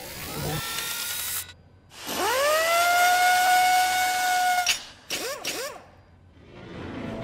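Animated-logo sound effects: a hissy whoosh, then a tone that sweeps up and holds steady for about two and a half seconds. It ends in a click, followed by two quick up-and-down blips and a swelling whoosh near the end.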